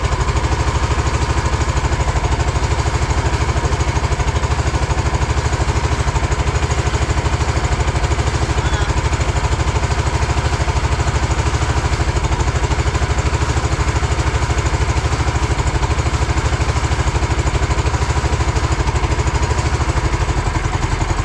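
A small engine running steadily at an even speed, with no change in pace.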